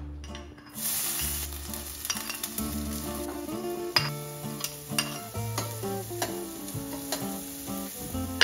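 Diced onion, celery and carrot sizzling in hot olive oil in a copper sauté pan. The sizzle starts about a second in as the onion goes in, with a few sharp clinks as a spoon scrapes the vegetables off a dish against the pan. Acoustic guitar music plays underneath.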